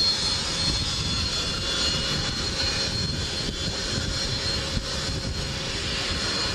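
Jet engines of a Beriev Be-200 amphibious aircraft running steadily as its hull skims across the water, with the rush of spray mixed in and a faint high whine.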